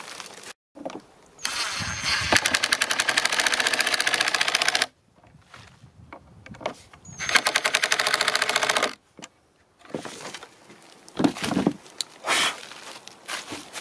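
Cordless power driver driving screws into pallet wood in two bursts of fast, even rattling, the second shorter, followed by a few knocks near the end.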